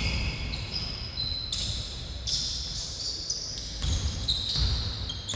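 Basketball play on a wooden sports-hall floor: many short, high squeaks of sneakers on the court, with a few dull thuds of the ball bouncing and feet landing.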